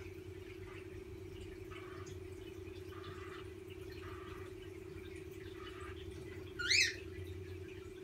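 Cockatiel giving one short, rising chirp about two-thirds of the way in, after a few faint soft sounds, over a steady low hum.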